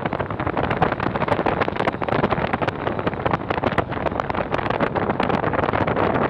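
Vehicle driving along a road, heard as a steady rush of wind buffeting the microphone over the road and engine noise, with many small clicks throughout.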